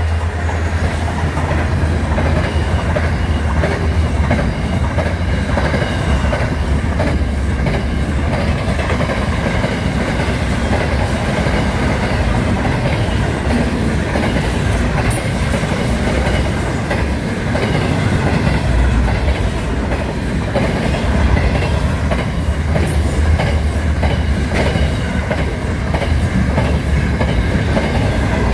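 Aurizon freight train's wagons passing at speed: a steady rumble with wheels clattering over the rail joints throughout.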